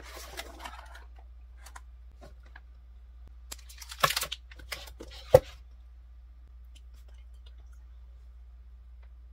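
Food packaging being handled: a paper box rustles, then a plastic-wrapped snack packet crinkles with a cluster of clicks about four seconds in. A single sharp knock comes about a second later, and a steady low hum sits under it all.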